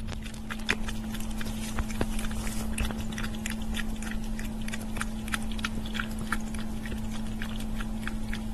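Cat eating wet canned food from a glass bowl: a quick run of small, wet chewing and lapping clicks, several a second, over a steady low hum.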